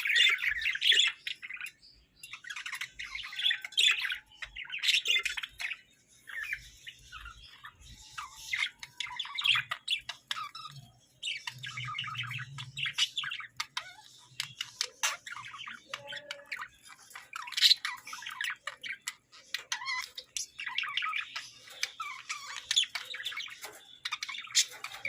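Hagoromo budgerigars chattering and warbling: quick chirps and squawks in busy bursts, with short pauses now and then.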